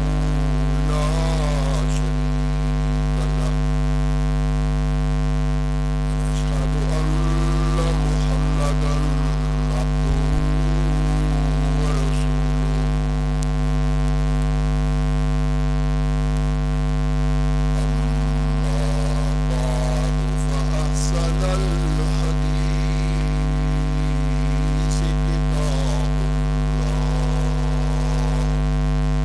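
Loud, steady mains hum and buzz that covers everything else. A man's voice comes through it faintly in short stretches.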